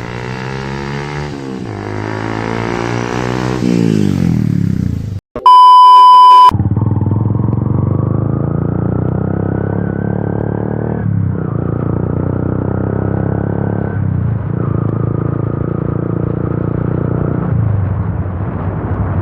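Yamaha FZ V2's single-cylinder engine through an Akrapovic-style exhaust with its dB killer removed, accelerating with rising pitch, then cut off by a loud, steady electronic beep lasting about a second. After the beep the motorcycle runs on at a steady speed, its pitch dipping twice as if shifting gear.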